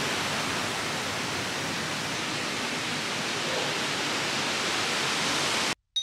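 Steady rush of water from a mountain stream running over boulders, cutting off suddenly near the end.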